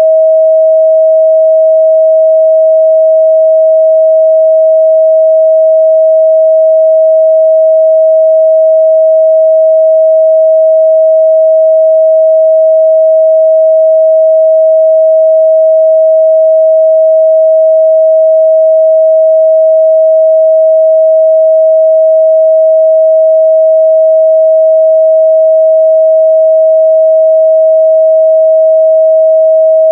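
Steady, loud 638 Hz pure sine-wave test tone, one unchanging pitch with no overtones.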